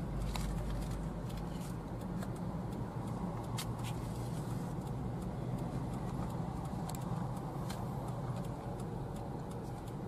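Steady low rumble of a car's engine and tyres heard from inside the cabin while driving, with a few faint clicks.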